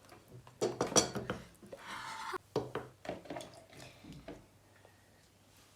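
Utensils and filled pasta tubes clinking and knocking against a baking dish and bowl: a scatter of short knocks over the first four seconds, with a brief scraping noise about two seconds in.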